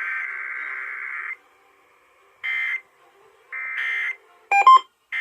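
Emergency Alert System SAME header data tones on a radio broadcast, marking the start of a required weekly test. A long burst of shrill two-pitch data tone stops about a second in, two short bursts follow, and a run of short beeping tones starts near the end.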